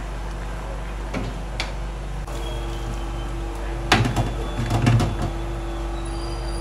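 A mesh strainer of drained parboiled rice knocking and rattling against a stainless steel sink in a short cluster about four to five seconds in, over a steady background hum.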